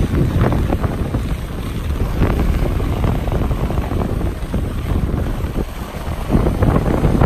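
Wind buffeting the microphone of a skier's camera moving downhill, with the irregular hiss and scrape of skis carving on packed snow.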